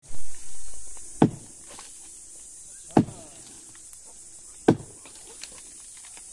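Axe chopping into tree roots: three sharp strikes about every second and a half to two seconds, after a loud brief noise in the first second. Insects keep up a steady high buzz behind.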